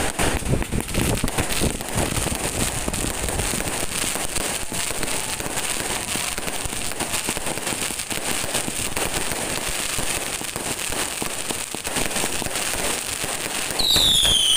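Fireworks going off in a dense, rapid barrage: a crowded run of crackling pops and bangs throughout, with a high falling whistle near the end.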